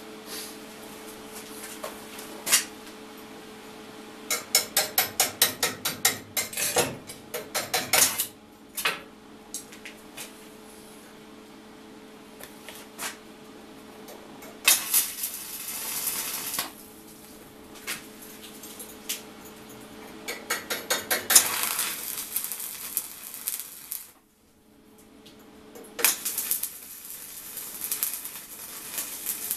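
Stick (arc) welding on steel. A run of quick metal-on-metal taps and clinks comes first, then several crackling, hissing bursts of the welding arc lasting a few seconds each.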